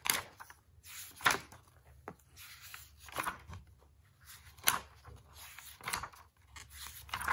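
Paper pages of a model-kit instruction manual being flipped by hand: a series of short paper swishes and rustles, one every second or two.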